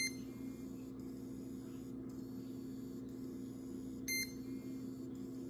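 Two short electronic beeps about four seconds apart, over a steady low electrical hum.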